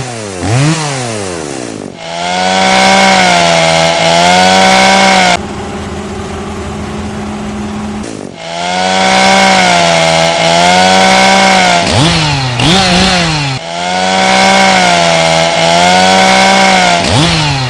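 Chainsaw engine revving up and running at high revs, its pitch wavering up and down. It breaks off abruptly for a few seconds of a lower, steadier engine hum, then revs up again twice.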